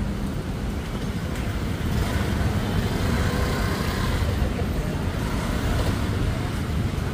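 Busy city street traffic: a steady rumble of passing vehicle engines and road noise.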